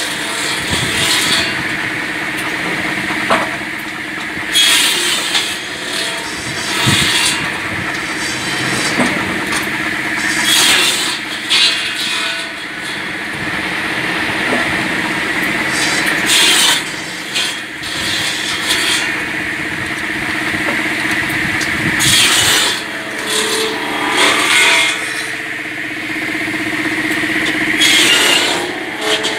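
Automatic cross-cut saw cutting sawmill slabs into firewood: a steady motor hum, with a loud burst of the blade cutting through wood every few seconds and a few sharp knocks of wood pieces.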